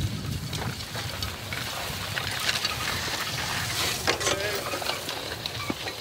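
Horse-drawn plough working through stubble: rustling and scraping of soil and straw with scattered clicks, and faint indistinct voices.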